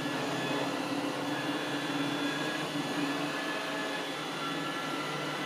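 iRobot Roomba 805 robot vacuum running as it cleans, a steady whir of its motor and brushes with a constant hum.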